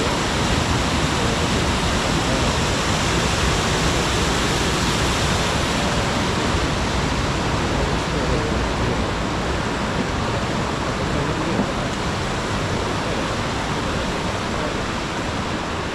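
Waterfall's falling water rushing, a steady even noise with no let-up.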